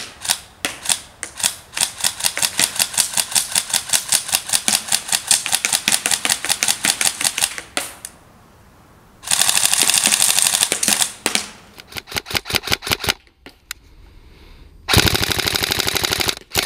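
Tokyo Marui Recoil Shock (Next Gen) M4 CQBR electric airsoft rifle firing: rapid single shots at about four a second for several seconds, then a continuous full-auto burst of about two seconds. More single shots follow, then a second full-auto burst near the end.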